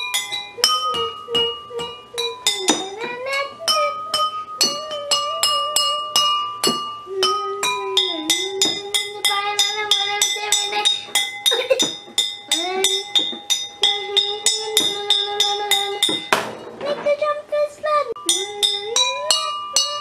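A pencil striking water-filled drinking glasses in quick succession, several strikes a second, each glass ringing with a clear glassy tone at its own pitch. A child sings "na, na" along in sliding pitches, imitating a trumpet.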